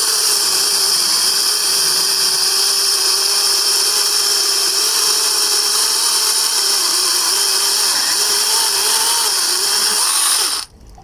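Cordless battery chainsaw running at full speed, a steady high whine whose pitch wavers as it cuts into a tree trunk. It stops abruptly near the end.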